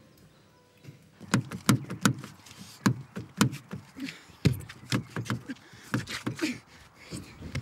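A run of irregular sharp knocks and thumps, a few a second, starting about a second in.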